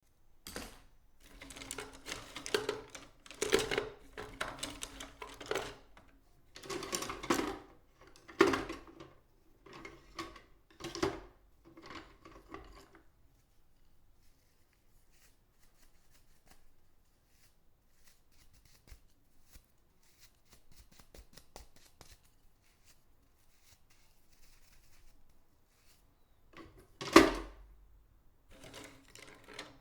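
Paintbrush bristles swept and scrubbed across a surface in a run of irregular strokes of different lengths. After about 13 s there is a long, nearly still stretch with only faint ticks, then one loud stroke comes about 27 s in, and the brushing starts again near the end.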